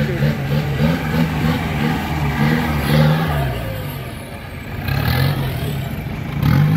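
Off-road jeep's engine revving hard, the pitch rising and falling again and again as the driver works the throttle climbing a dirt track. The engine eases off briefly past the middle, then revs up again.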